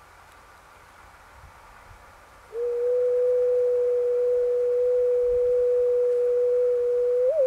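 A single pure tone, like a sine wave, comes in suddenly about two and a half seconds in. It holds steady at one low-middle pitch and gives a few quick upward wobbles in pitch near the end.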